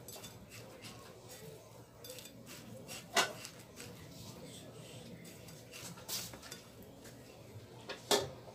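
Hands coating a butterflied horse mackerel fillet in breadcrumbs on a ceramic plate: soft rustling and patting of crumbs, with small clicks against the plate and two sharper clinks, about three seconds in and near the end.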